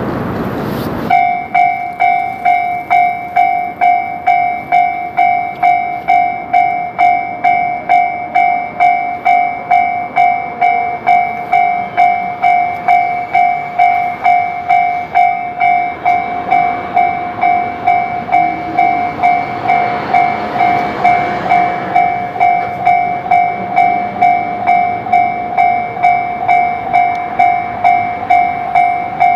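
Japanese railway level-crossing warning bell, starting suddenly about a second in and then striking steadily about twice a second, a two-pitched electronic clang. It is the crossing signal warning that a train is approaching.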